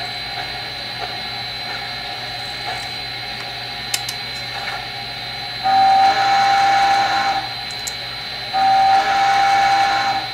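Sound system of an HO-scale model steam locomotive blowing its steam whistle twice, two long blasts at one steady pitch, over a steady background hum. Two long blasts are the railroad whistle signal for proceeding.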